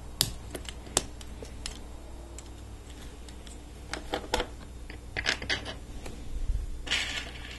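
Small hard plastic clicks and taps as LEGO Technic liftarms, pins and a gear are pressed together by hand, in short clusters. Near the end comes a brief rattle of loose plastic parts.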